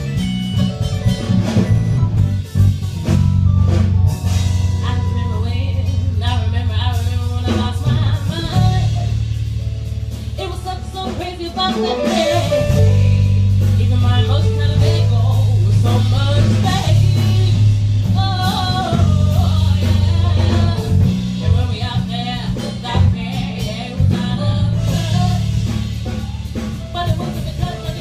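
Live jazz-fusion band playing: bass and drum kit under piano chords, with a bending lead melody on top.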